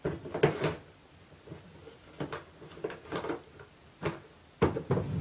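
A handful of short knocks and rustles of craft supplies being handled on a desk while a roll of washi tape is fetched, the loudest cluster near the end.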